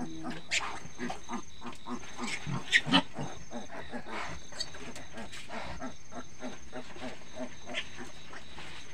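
A sow grunting in short repeated grunts, with a few sharper squeals, the loudest a pair about three seconds in, while she is farrowing.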